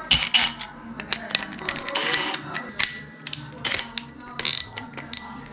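Irregular metallic clicks and clinks as a 50 mm hole saw on its arbor is fitted into a cordless drill's keyless chuck and the chuck is turned tight by hand.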